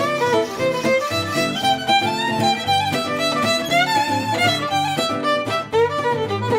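Background music: a fast fiddle tune with string accompaniment.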